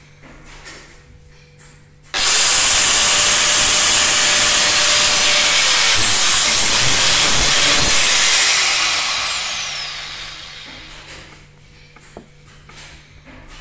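Angle grinder with a sanding disc switched on about two seconds in, grinding the steel of a knife blank made from a circular saw blade; it is switched off a little past halfway and winds down over a couple of seconds, its pitch falling.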